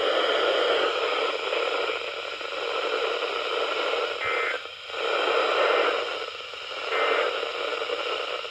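Radio static: a steady hiss from a radio receiver with no programme on it, dipping briefly about halfway through.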